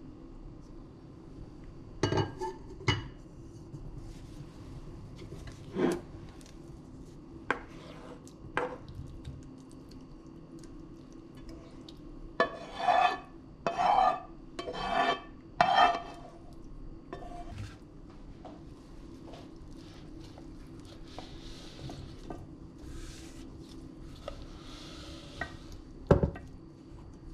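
Cookware handling: a few sharp clinks and knocks of a pot lid and pans, then a spatula scraping sauce out of a frying pan in four quick strokes, and near the end one knock of a wooden cutting board against the pot as diced potatoes slide in. A low steady hum runs underneath.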